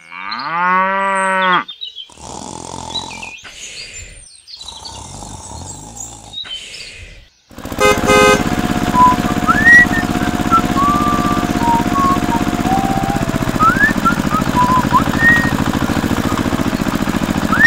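A small engine running steadily with a fast chugging pulse, starting about seven and a half seconds in, with short high chirps over it. Before it, a rising pitched tone in the first second and a half, then quieter scattered noise.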